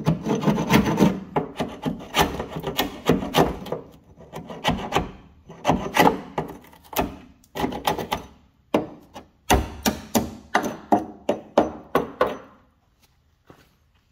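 Hand sanding of the Alfa Romeo 33's body: abrasive rubbed over the panel in quick, irregular rasping strokes, about two or three a second, that thin out and stop about a second before the end.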